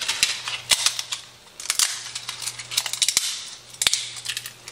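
Dry lasagna noodles being snapped into pieces by hand, a quick irregular series of sharp cracks.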